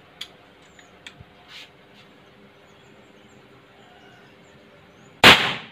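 A few light clicks as the AFC Texan PCP air rifle is handled, then a single loud sharp shot about five seconds in as it fires a pellet, dying away quickly.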